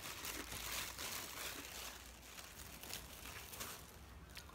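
Faint crunching of crunchy food being chewed with the mouth closed, heard up close.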